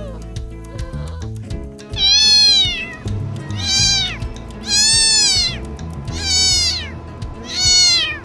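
A cat meowing five times, evenly about every second and a half, each call rising then falling in pitch, over background music.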